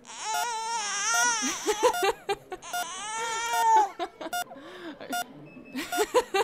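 An infant crying in two long, wavering wails over the first four seconds, with short electronic beeps sounding again and again through it and after it.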